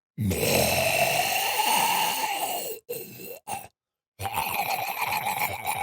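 Guttural monster vocalisation sound effect: a long throaty groan for about two and a half seconds, two short grunts, a brief break, then a second growl that stutters in rapid pulses.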